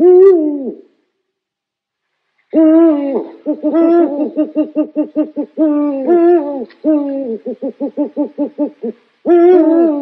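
Owl calling: a falling call at the start, then from about two and a half seconds a run of drawn-out calls with drooping ends, broken by series of rapid pulsed notes at about six a second, and another call near the end.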